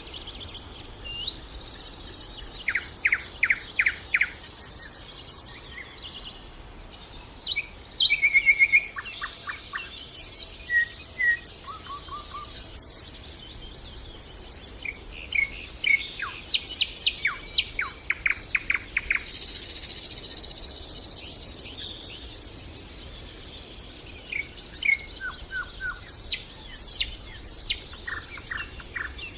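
Nightingale singing: a string of varied phrases of fast repeated notes, trills and whistles, separated by short pauses, with one harsh buzzing phrase of about three seconds past the middle.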